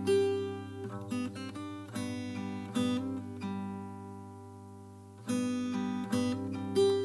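Acoustic guitar playing the song's instrumental intro: chords strummed and left to ring, with one chord held and fading for a couple of seconds before the strumming picks up again about five seconds in.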